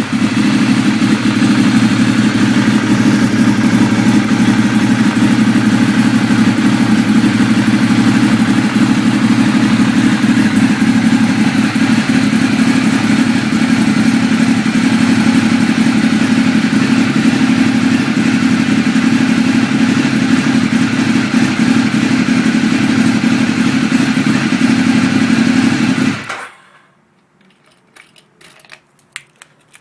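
Sport motorcycle engine idling steadily, then switched off about 26 seconds in, followed by a few faint clicks.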